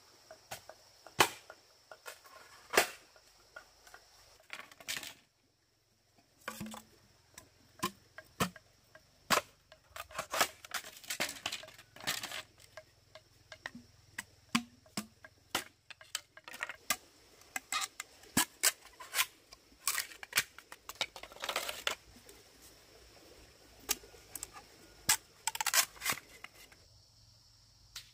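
A series of irregular sharp knocks and clicks, a few seconds apart and sometimes in quick clusters, with a few brief scraping sounds among them.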